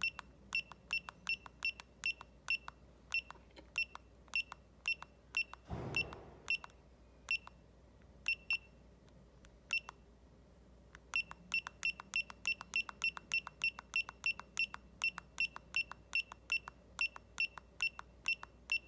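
Retekess T128 watch pager beeping once at each button press as its keys are pressed over and over to scroll through characters in its settings menu. The short, identical high beeps come about two to three a second, pause for a few seconds near the middle, then resume quickly, with a brief rustle about six seconds in.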